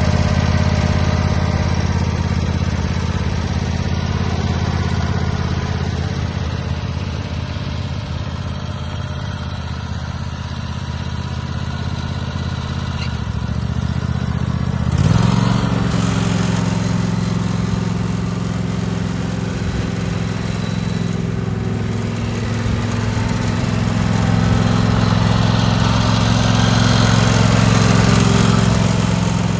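Craftsman GTS 5000 garden tractor engine running steadily at low speed, then throttled up about halfway through to a higher steady speed.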